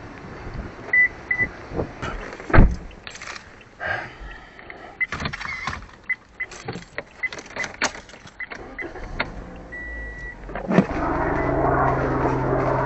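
Scattered clicks, knocks and handling noise with a few short, high beeps, then a heavy thud about eleven seconds in, after which a car's steady low hum takes over.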